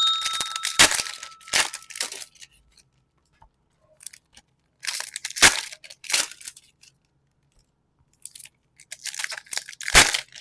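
Foil booster-pack wrappers being torn open and crinkled by hand, in three bursts of rustling with pauses between. At the start a short ring from a struck object fades out.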